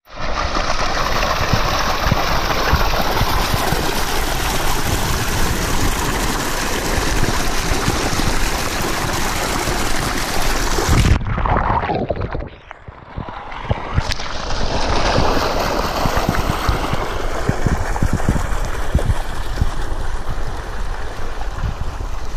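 Water gushing from a stone spout and splashing into a pool, heard close up as a steady rush. A little past halfway the sound turns muffled and dull for about two seconds as the falling water washes over the microphone, then the splashing rush comes back.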